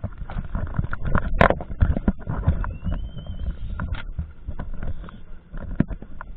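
Close knocks, bumps and rubbing of a diver handling rubber fins and gear on a boat deck, with many sharp irregular clicks over a low rumble, heard right at a mask-mounted camera.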